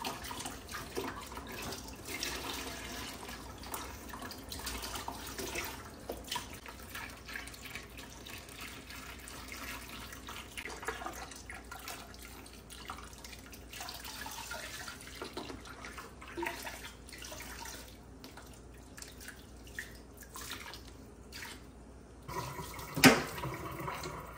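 Water running from a handheld sprayer hose and splashing as a small wet dog is rinsed in a tub of water, with drips and uneven splashing. A single sharp knock sounds about a second before the end.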